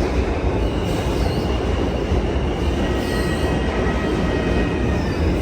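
New York City subway train running through the station: a steady rumble of wheels on rail, with faint high squealing tones from the wheels.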